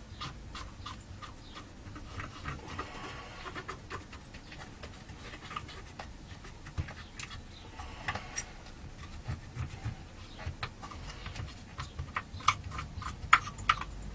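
Scrubbing and scraping at the monitor's circuit board to clean off leaked capacitor electrolyte: an irregular run of small scratches and clicks, with a few sharper clicks near the end.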